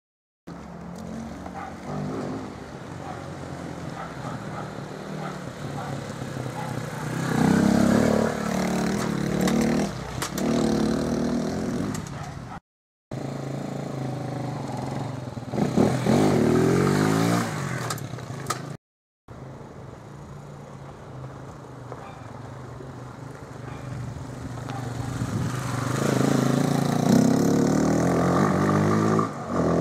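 Motomir Comandor motorcycle engine running as the bike rides along, revving up and down with its pitch rising as it accelerates, louder toward the end. The sound drops out twice for about half a second between clips.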